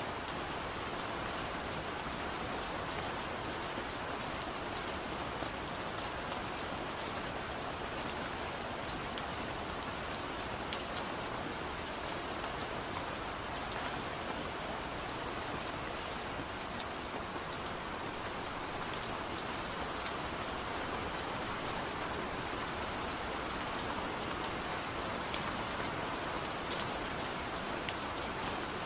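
Steady rainfall, an even hiss of rain with single drops ticking sharply here and there. There is no thunder.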